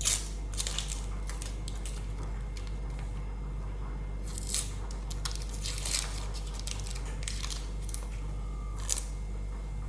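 Onions and tomatoes being cut with a kitchen knife: irregular, crisp slicing and crunching strokes, about ten spread unevenly, over a steady low hum.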